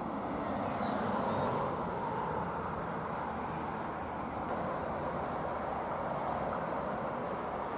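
Steady distant vehicle rumble, with a slight swell about a second in and no sharp events.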